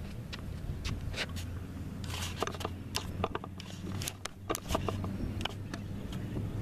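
Tennis warm-up rally: racquet strikes and ball bounces heard as scattered sharp pops over a steady low wind rumble on the microphone.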